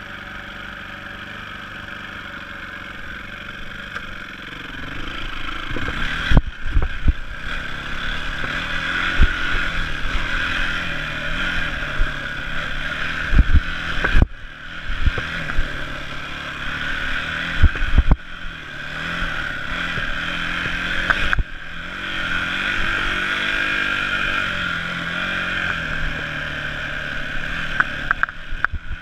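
Yamaha dirt bike engine idling steadily, then pulling away about four seconds in and revving up and down while riding a rough dirt trail. Sharp knocks and clatter from the bike hitting bumps come several times along the way.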